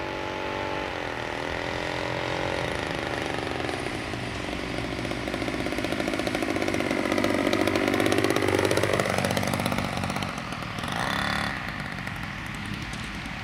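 Small engine of a radio-controlled model Storch plane buzzing as it comes in to land. The pitch drops as it is throttled back, grows loudest about eight seconds in as it passes low and close, then falls away as it touches down.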